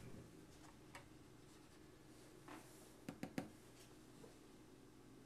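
Near silence with a faint steady room hum, broken by a few soft clicks: one about a second in, then three quick ticks close together about three seconds in.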